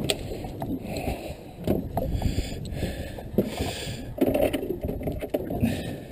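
Steady low rush of a small boat drifting on open water, with scattered clicks, knocks and scuffles as fishing tackle is rummaged through in a plastic tube caddy.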